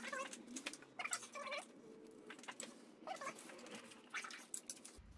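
Several short, faint whining animal calls, each curving up and down in pitch, about a second apart, with light metal clicks of parts being handled between them.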